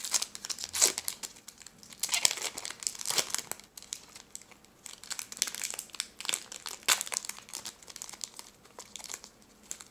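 Foil trading-card pack wrapper being torn open and peeled apart by hand, with irregular crinkling and crackling in bursts.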